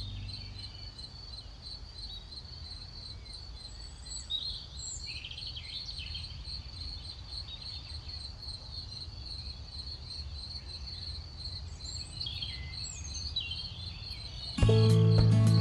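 Crickets chirping in a steady, even pulse, with scattered short bird calls. Music comes in suddenly and loudly about a second before the end.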